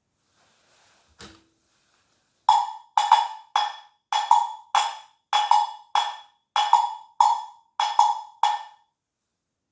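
Pitched wooden knocks, like a wood block, tapped in a steady rhythm of about two a second, some in quick pairs. Each strike rings briefly. One softer knock comes about a second in, before the rhythm starts.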